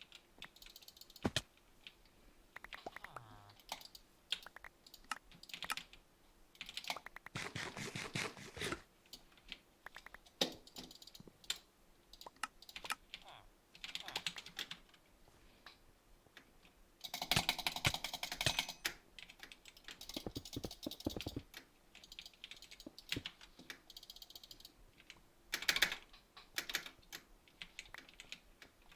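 Runs of small, quick clicks in irregular bursts, with quieter gaps of single clicks between them.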